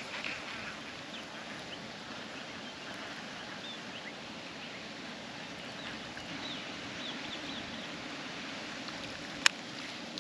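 Steady wind rush with scattered faint bird chirps, and one sharp click near the end.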